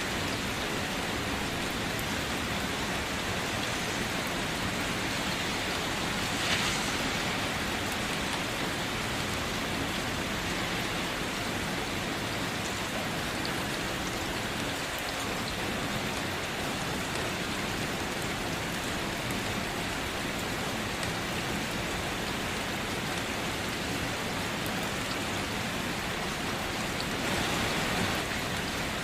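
Steady rain falling, an even hiss of drops on a surface, with a brief louder burst about six seconds in and a slight swell near the end.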